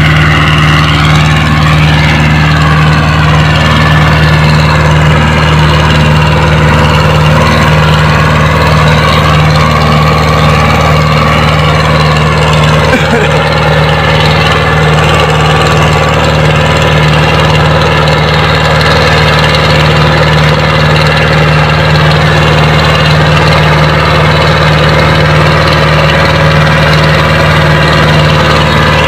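Powertrac Euro 60 tractor's three-cylinder diesel engine running steadily under load while it pulls a disc harrow through tilled soil.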